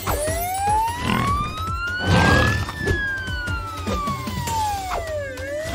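Cartoon ambulance siren sound effect wailing: one slow rise in pitch over about two and a half seconds, a slow fall, then rising again near the end. Whooshing effects and background music run alongside it.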